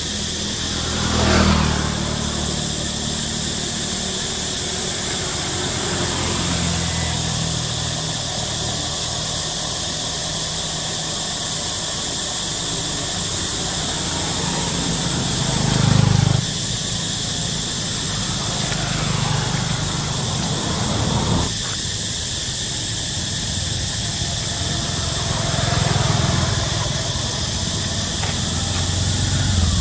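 Motorbikes passing one after another on a nearby road, each engine swelling and fading as it goes by, about four passes. Underneath, a steady high insect hiss.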